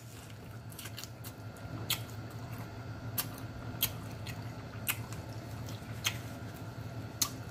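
A person chewing fried chicken close to the microphone, with about a dozen scattered sharp smacks and crunches of the mouth over a steady low hum.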